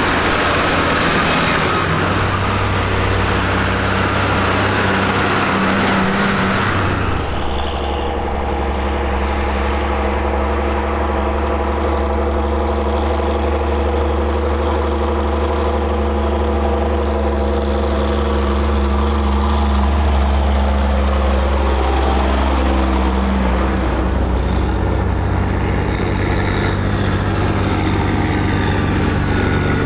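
Farm tractors drive past one after another with their diesel engines running. The first passes close with a loud, broad rush. A steadier engine hum with a clear pitch follows, and near the end another tractor comes up louder.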